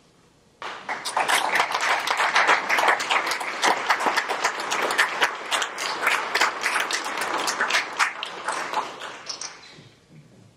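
Audience applauding: many hands clapping, breaking out suddenly about half a second in and dying away near the end.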